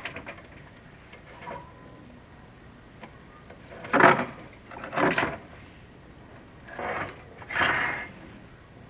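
Chimney inspection camera scraping against the masonry walls of the flue as it is lowered, in four short rasping bursts in the second half.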